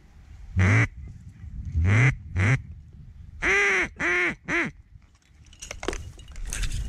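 Loud duck quacks: one call, then two, then a quick run of three, each with an arching rise and fall in pitch. Fainter, thinner bird calls follow near the end.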